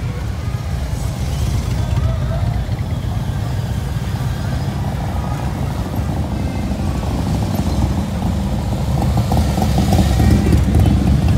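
Large touring motorcycles rumbling past one after another at parade pace, a steady deep engine rumble that swells near the end as a bike passes close.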